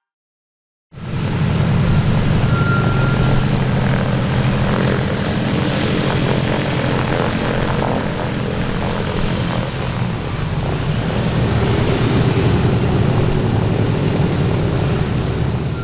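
Propeller aircraft's piston engine running steadily, a dense low pulsing rumble that starts abruptly about a second in.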